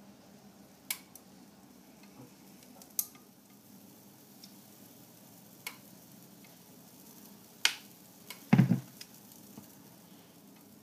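Spoon clicking against the bowl and the pie maker's wells as batter is spooned in: a few sharp clicks a couple of seconds apart, then a heavier clunk near the end.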